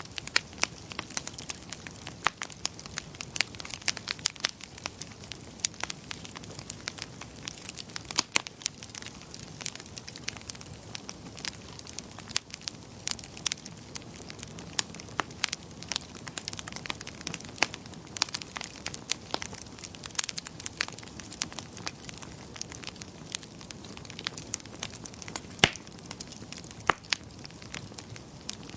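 Wood fire crackling: frequent irregular sharp pops and snaps over a soft steady hiss, with a few louder pops, one standing out near the end.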